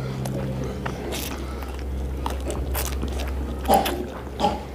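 Close-up eating sounds: chowmein noodles being slurped and chewed, a run of short wet mouth noises with the loudest about three and a half seconds in.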